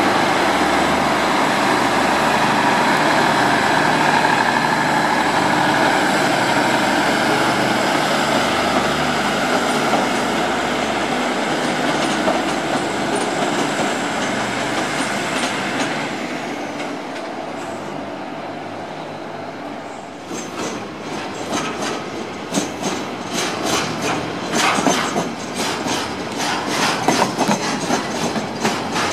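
Diesel multiple unit passenger train running past with its engine droning steadily. About halfway through the engine sound fades, and a freight shunt's wagons roll past with a quickening run of clicks and clanks from the wheels over the rail joints.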